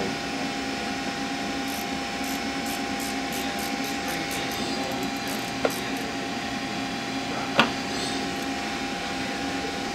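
Ratchet wrench with a 12 mm socket clicking in quick faint ticks as it backs the piston nut off a shock absorber's shaft, from about two seconds in until about four and a half. Later come two sharp metal clicks, the second the loudest, over a steady background hum.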